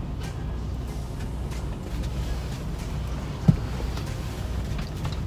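Steady low rumble of a Freightliner Cascadia truck idling, heard inside its sleeper cab, with a single short thump about three and a half seconds in.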